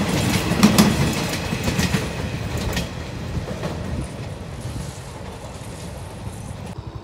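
Passenger train coaches rolling away, their wheels clicking over the rail joints over a rumble; the clicks are sharpest in the first three seconds, then the sound fades as the train draws off.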